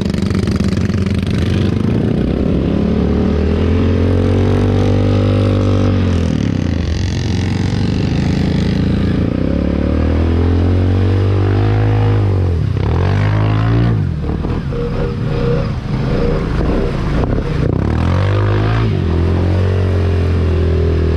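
Honda Rancher 420 ATV's single-cylinder engine revving up and easing off repeatedly while it drives through shallow muddy water, with water splashing around the tyres.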